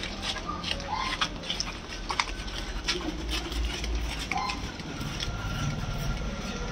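Scattered clicks and light knocks as large marble slabs are shifted and tilted by hand, over a steady low rumble.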